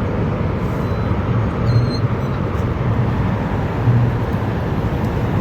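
Steady low rumble of road and engine noise from a moving vehicle.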